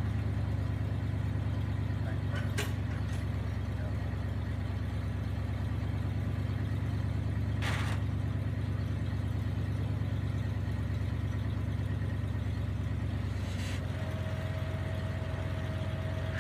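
1972 Ford F600 dump truck's engine idling steadily, a low even hum. A few faint clicks come through, and a faint higher whine joins near the end.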